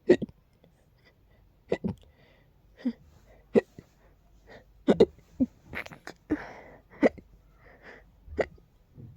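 A person hiccuping over and over: about a dozen short, sharp hiccups at uneven intervals of roughly half a second to a second and a half, with a few soft breaths between.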